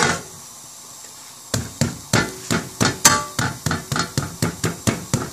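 A sharp clatter with a sizzle as the pancake is folded over on the hot iron griddle. From about a second and a half in comes a slotted metal spatula striking the pancake and griddle about four times a second, each strike ringing briefly.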